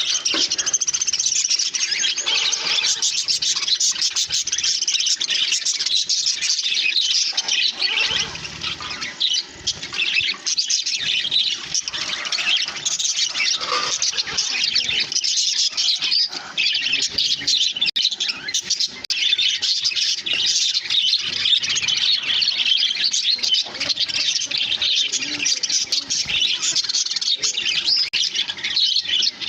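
A flock of budgerigars chirping and chattering together, a dense, continuous mix of many short overlapping calls, easing briefly about a third of the way in.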